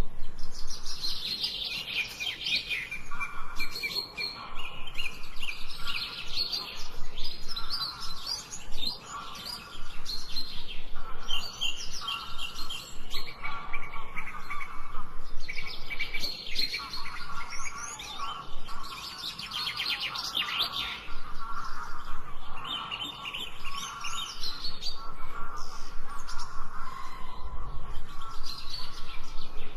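Birds chirping and singing, several voices overlapping in quick repeated chirps and trills, phrase after phrase with short pauses between.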